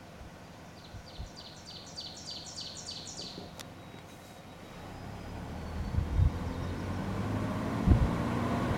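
A songbird sings a quick series of about ten short, high, repeated notes. About five seconds in, the car's engine and tyre noise rise steadily as it pulls away, heard from inside the cabin, with a few thumps.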